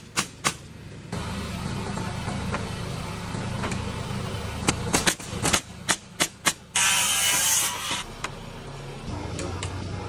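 Nail gun driving nails into a wooden sill plate: a quick run of about seven sharp shots around the middle, followed by a brief hiss just under a second long. A steady low machine hum runs underneath.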